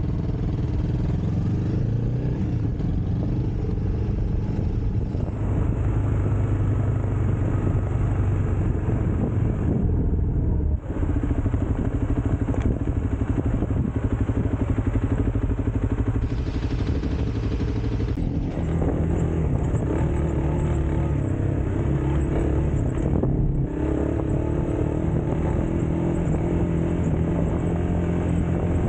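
Motorcycle engine running steadily while under way, its note stepping up and down a few times, with short dips in level about eleven and twenty-three seconds in.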